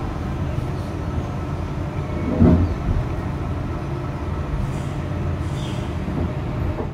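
Intercity V-set electric train with camshaft-controlled DC traction motors, running with a steady low rumble and faint steady tones. A heavier thump comes about two and a half seconds in.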